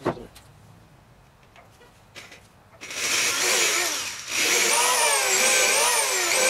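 Power drill boring pilot holes into wood, its motor whine wavering in pitch as the bit cuts, in two runs with a short break between, starting about three seconds in. A click and a few light knocks come before.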